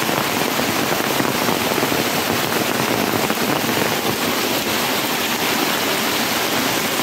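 Steady rush of a small rain-swollen stream running over rocks and a little cascade, mixed with heavy rain falling.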